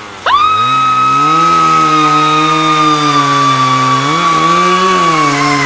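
A chainsaw starts up and runs loudly, its engine revving up and back down about four seconds in. Over it a long, high, steady scream is held without a break.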